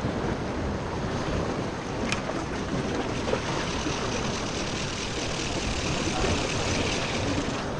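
Sea surf washing against the rocks of a jetty, with wind on the microphone: a steady rushing noise.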